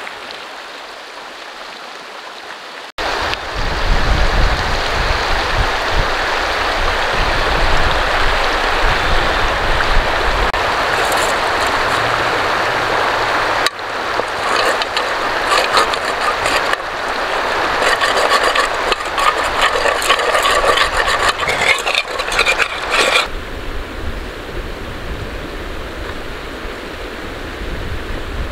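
Shallow mountain stream rushing over stones, with a low rumble of wind on the microphone at times. From about halfway, irregular scraping and clinking as a metal cooking pot is scrubbed out in the water. The clinking stops a few seconds before the end.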